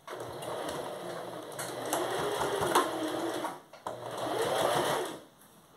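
Small domestic electric sewing machine stitching a straight seam: one run of about three and a half seconds, a brief pause, then a shorter run of about a second before it stops.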